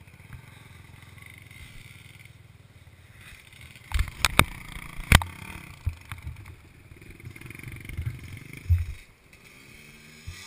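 Dirt bike engines running at a distance, with a few sharp knocks on the camera about four to five seconds in.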